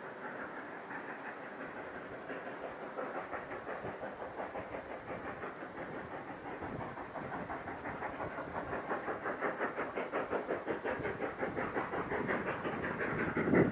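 Narrow-gauge steam locomotive exhaust chuffing in a steady rhythm of about three beats a second, growing louder, the sound of the engine working hard on the climb. A stronger burst comes right at the end.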